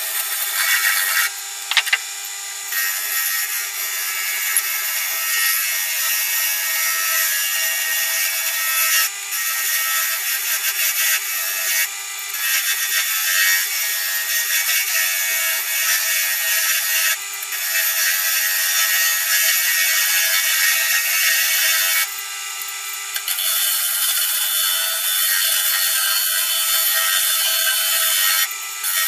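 Wood lathe spinning a celery wood pen blank while a hand-held turning tool cuts it, a continuous scraping of steel on wood that breaks off briefly several times as the tool comes away.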